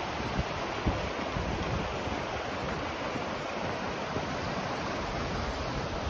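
River rapids rushing steadily over rocks, with wind buffeting the microphone.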